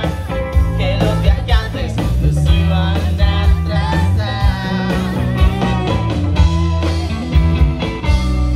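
A live rock band playing loud through a PA: electric guitars, bass guitar and drums.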